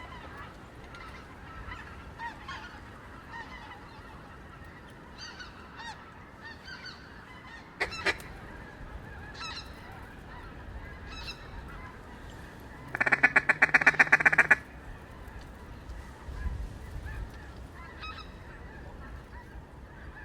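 Mallard duck call blown close by: a single loud quack about eight seconds in, then a fast, loud string of about a dozen quacks lasting under two seconds, calling to a passing single mallard. Fainter quacking continues in the background throughout.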